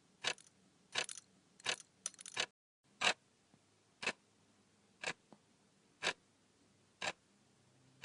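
Clock ticking, one sharp tick a second. The first few ticks come quicker and unevenly, then a short dropout, then steady ticking.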